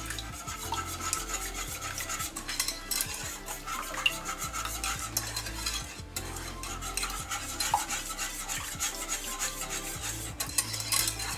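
Wire balloon whisk beating milk, egg, sugar and yeast in a saucepan: a steady quick run of clicks and scraping as the wires hit the pan.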